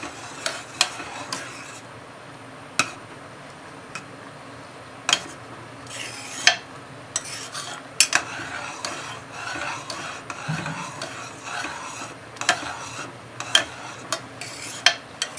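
A spoon stirring samak rice in water in a cooking pot, clinking and scraping against the pot at irregular moments. The stirring keeps the grains from sticking to the bottom.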